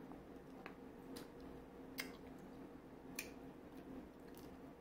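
Crab shell being picked apart by hand, giving a handful of faint sharp clicks and crackles spaced a second or so apart, over a faint steady hum.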